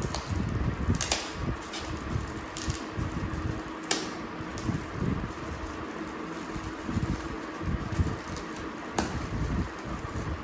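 Shiny gift wrapping paper crinkling as a small wrapped box is picked open by hand, with a few sharp crackles about 1, 2.5, 4 and 9 seconds in. Under it runs a steady low rumble of fan or air noise.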